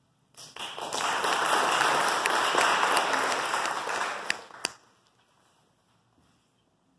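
Audience applauding, a dense patter of claps that starts just after the music ends and stops abruptly a little before five seconds in.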